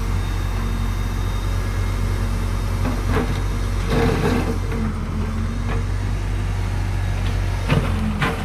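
JCB backhoe loader's diesel engine running steadily, with irregular knocks and scrapes, about five in all, as its bucket breaks up a water-channel control box.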